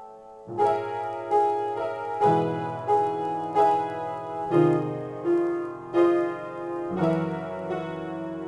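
Piano improvisation: after a brief lull, chords are struck about every three-quarters of a second over bass notes that change every two seconds or so.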